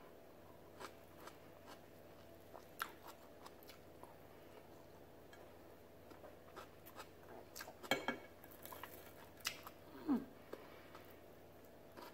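A person chewing food with the mouth close to the microphone: faint wet chewing and small clicks, with a few louder mouth noises from about eight seconds in, one of them a short falling hum.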